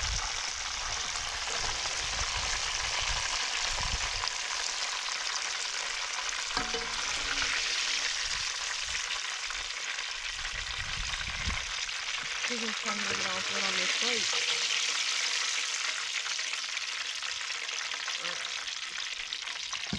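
Tilapia frying in hot grease, a steady sizzle.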